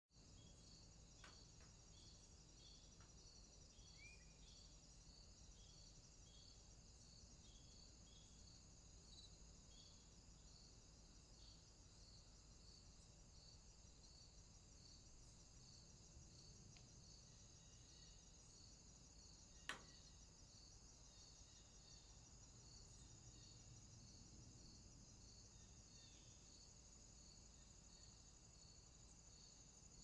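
Near silence: faint outdoor ambience with a steady high-pitched whine pulsing evenly about once or twice a second, a few faint short chirps, and one sharp click about 20 seconds in.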